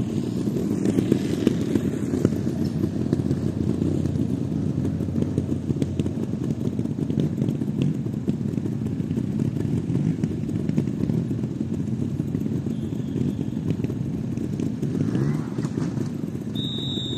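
Several trials motorcycle engines idling together, a steady low engine sound with small rises and falls. A short high-pitched tone sounds near the end.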